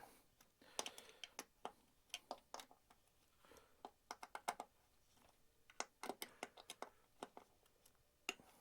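Faint, irregular small clicks and ticks of hands working the wiring of an LED downlight: terminal screws, conductors and plastic fittings being handled.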